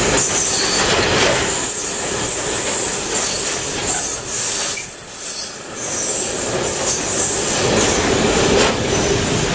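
Yellow Network Rail ballast wagons of an engineering train rolling past, wheels running on the rails with a clatter, and a thin high-pitched wheel squeal coming and going over the top.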